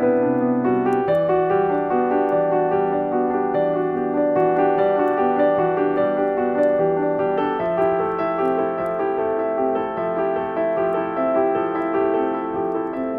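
Slow, soft romantic piano music with held chords that change about a second in and again around seven and a half seconds in.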